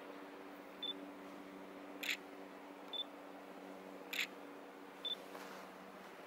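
Digital SLR camera taking photos: short high focus-confirm beeps, each followed about a second later by a sharp shutter click, repeated two to three times, over a faint steady electric hum.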